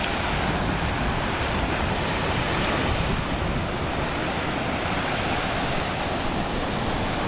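Sea surf washing on a beach, with wind buffeting the microphone: a steady, even rush of noise.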